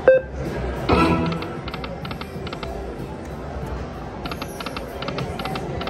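Video slot machine spinning: a short beep as the spin button is pressed, a chime about a second in, then two runs of quick ticking clicks as the reels spin and stop.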